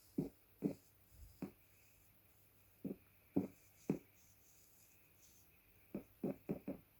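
A small handheld toy worked right up against a microphone: about ten short, soft crunches in three quick groups, the kind of close-up sound meant to be satisfying.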